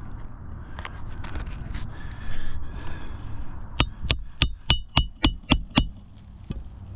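Scraping and rustling on asphalt roof shingles, then a quick run of about eight sharp taps, roughly four a second, each with a light metallic ring.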